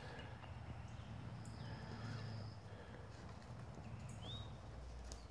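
Faint outdoor ambience: a few short bird calls, one a rising chirp about four seconds in, over a low steady rumble.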